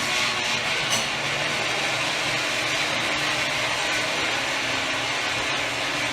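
A dense, steady wall of harsh electronic noise from a live noise-music set, with a brief sharp crackle about a second in.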